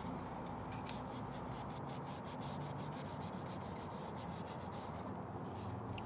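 Sandpaper rubbed by hand over the primed edge of an aluminium alloy wheel, a steady light sanding that feathers the edges of the fresh primer smooth.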